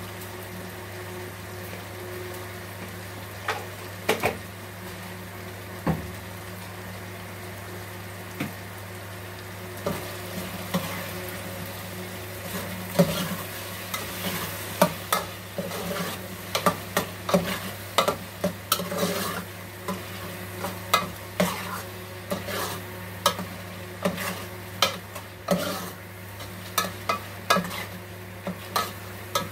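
A pot of chicken and tomato sizzling while a spoon stirs it, over a steady low hum. The spoon knocks against the pot now and then at first, then scrapes and clinks irregularly from about ten seconds in.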